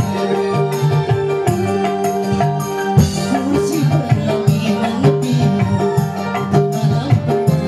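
Live band music amplified through a PA: sustained electronic keyboard chords over a steady drum and tambourine beat, with a man singing into a microphone.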